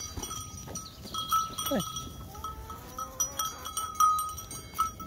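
Sheep close by, with a short call sliding down in pitch a little under two seconds in. Light bell-like chiming rings through, loudest about four seconds in.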